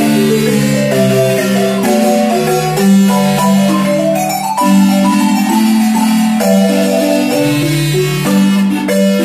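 A wooden marimba played by several players at once, a melody moving up and down over a lower bass line. Many notes are held with rapid mallet rolls.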